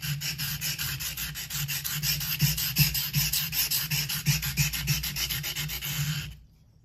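Steel Opinel knife blade laid flat and rubbed on a wet 120-grit Shapton Kuromaku waterstone, a gritty scrape with fast, even back-and-forth strokes, several a second, that stop about six seconds in. This is the coarse flat grinding that lays down a false hamon pattern on the blade.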